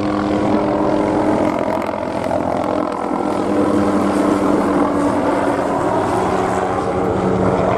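OH-6 light observation helicopter flying low overhead: a continuous turboshaft and rotor sound with steady tones that shift slightly in pitch as it passes.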